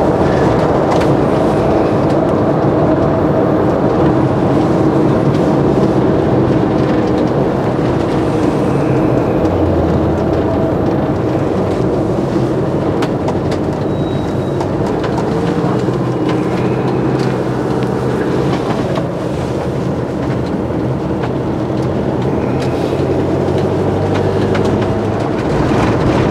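Motorhome engine and road rumble heard from inside the cab while driving, steady and loud, with the engine note changing a few times as the speed changes.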